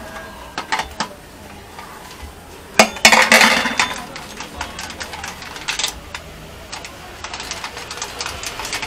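Hands handling the fuel-pump unit on a scooter's fuel tank: scattered small clicks and knocks of plastic and metal parts, with a louder scraping rustle about three seconds in.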